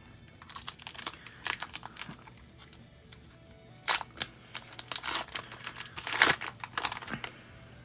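Foil Pokémon booster pack wrapper crinkling as it is handled and torn open, with cards rustling: a run of quick sharp crackles, densest about four and about six seconds in.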